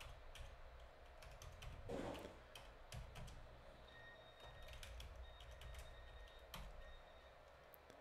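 Faint typing on a computer keyboard: scattered, irregular key clicks, with a brief soft noise about two seconds in.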